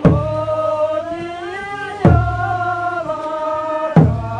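Slow sung chant with long held notes that rise and fall, over a heavy beat struck about every two seconds, three times.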